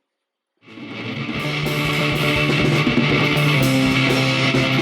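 Near silence for about half a second, then background rock music with electric guitar fades in and plays at a steady level.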